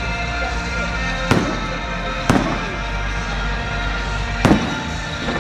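Fireworks shells bursting: three sharp bangs, about a second in, a second later, and again near the end, each trailing off in an echo.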